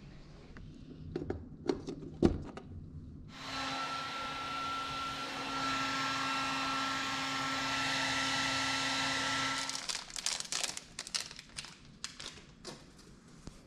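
Hand-held hair dryer switched on about three seconds in, blowing steadily with a low motor hum and a high whine for about six seconds, then switched off. A run of small clicks and taps follows as a toothbrush in its plastic wrapper is handled.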